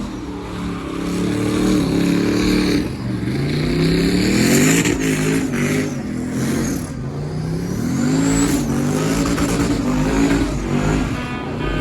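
A vehicle engine revving, its pitch climbing and dropping back several times in a row.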